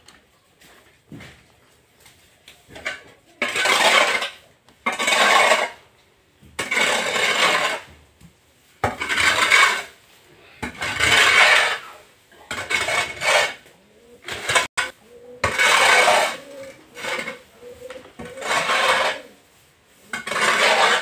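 A long-handled wooden scraper dragged through cow dung and straw on an earthen floor in repeated strokes, each about a second long, every one and a half to two seconds. A single sharp knock comes about two-thirds of the way through.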